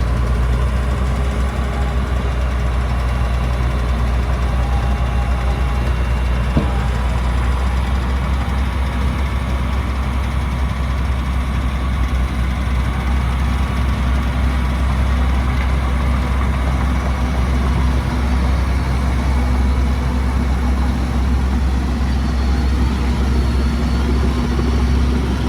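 Heavy diesel engine of earthmoving machinery running steadily at low revs, a low even drone.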